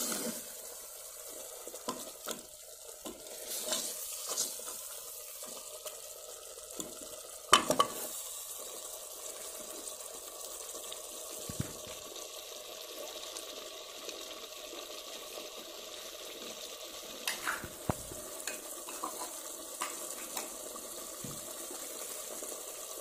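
Thick mutton masala sizzling steadily in an open aluminium pressure cooker, cooking down and releasing its oil, while a steel ladle stirs it and knocks against the pot now and then; the loudest knock comes about a third of the way in.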